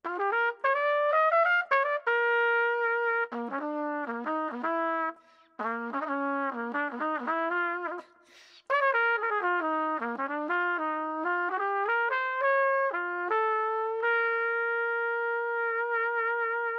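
Solo trumpet playing a fast jazz line of quickly changing notes, with two short pauses, ending on a long held note.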